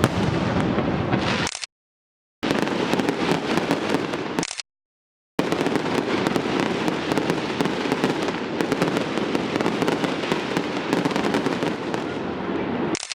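A fireworks display going off thick and fast: a dense stream of bursts, pops and crackles. The sound cuts out abruptly to silence twice in the first five seconds.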